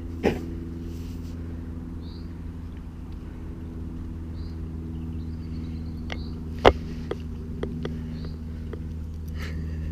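A steady low mechanical hum, with two sharp knocks, the louder one past the middle, a few lighter clicks after it, and faint high chirps.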